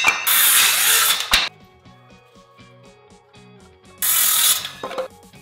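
Circular saw cutting through wooden boards. One cut ends sharply about a second and a half in. A second short cut starts about four seconds in and the blade then winds down. Background music with a steady beat plays in the gap between the cuts.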